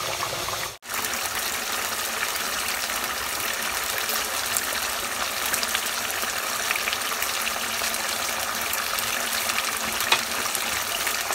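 Duck curry sizzling and bubbling in a pot as its gravy is cooked down, a steady hiss with small scattered crackles. The sound drops out briefly about a second in.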